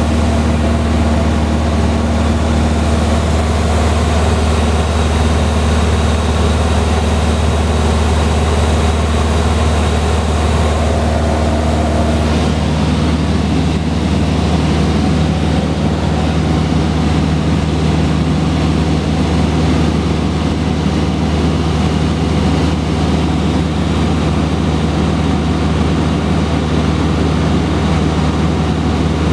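Cessna 150H's four-cylinder Continental O-200 engine and propeller droning steadily, heard inside the small cabin with air rushing past. About twelve seconds in the engine note drops to a lower pitch and stays there, as power is brought back for the descent.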